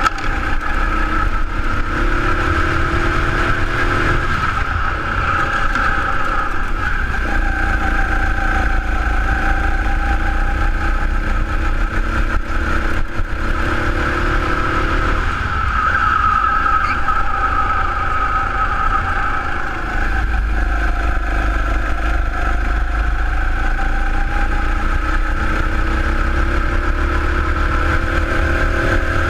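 Sodi RX7 rental go-kart's engine heard from on board at racing speed, its pitch rising and falling again and again as the throttle is opened and lifted through the corners. Wind rushes over the microphone throughout, heavier in the last third.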